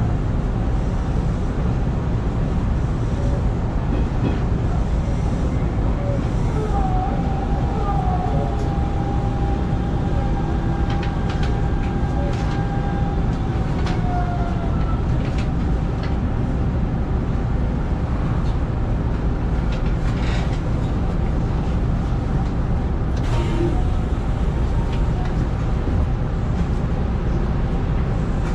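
Hanshin 5500-series electric train running along the track, heard from inside the cab: a steady rumble of wheels and running gear, with a drawn-out whine about a third of the way in and a few short clicks.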